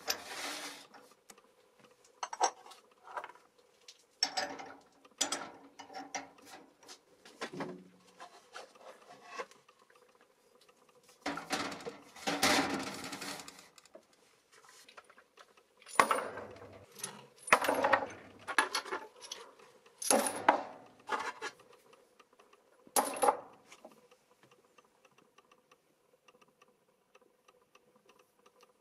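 Small cast metal pieces being handled and set down on a hard surface: a series of irregular clinks and knocks with a longer rubbing, scraping stretch, over a faint steady hum, going quiet near the end.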